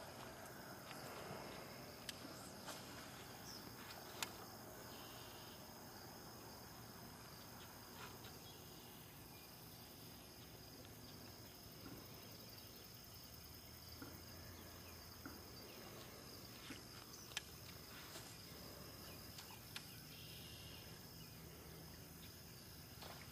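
Faint outdoor ambience: a steady high-pitched insect chirring, with a few sharp, light clicks and knocks scattered through it.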